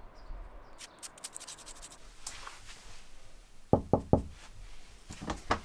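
Knocking on a wooden door: three quick knocks, then a few more sharp taps near the end.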